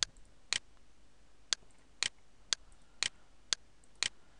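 Computer mouse clicking: seven sharp, single clicks at a steady pace of about two a second.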